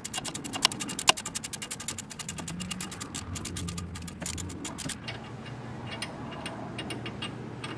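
Hand ratchet on an extension with a T55 Torx bit, clicking rapidly as it backs out the upper brake-caliper mounting bolt. About five seconds in, the clicking turns slower and fainter.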